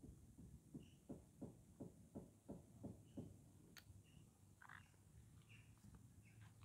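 Near silence: faint outdoor quiet with a run of soft taps, about three a second, in the first half, and a few faint short high chirps later on.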